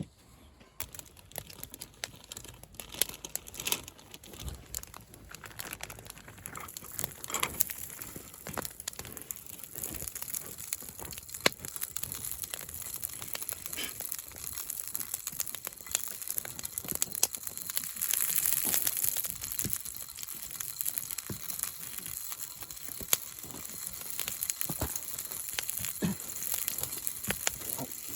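Breakfast cooking over a camp fire: scattered crackles and crinkling, with a sizzling hiss that builds from about six seconds in.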